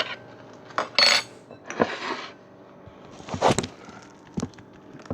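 Kitchen dishes and cutlery being handled: a few separate clinks and knocks with short scraping sounds in between.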